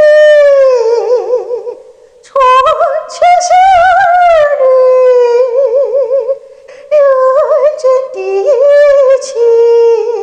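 A woman sings a Chinese ballad solo in a high register, holding long notes with a wide vibrato. There are two short breaks for breath between phrases, and no accompaniment is heard.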